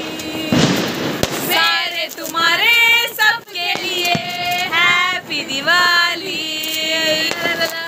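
A woman's voice singing a melody with long, sliding held notes. A burst of hissing noise with a sharp crack comes in the first second and a half, typical of firecrackers going off.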